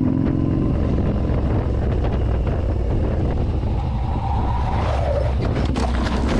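Yamaha Bolt 950's air-cooled V-twin engine running under wind noise as the motorcycle is ridden. Near the end come several sharp knocks and scrapes as the bike goes down.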